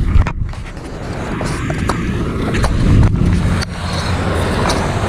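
Wind rumbling on the microphone as the camera is carried, with scattered clicks and rustles of handling and footsteps in grass.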